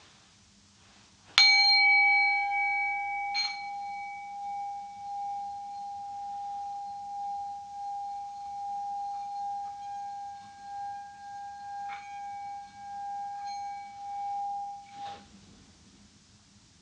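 Singing bowl struck once about a second in, tapped again about two seconds later and once more near twelve seconds, ringing on as a single steady tone that wavers in loudness. It is cut off suddenly about fifteen seconds in.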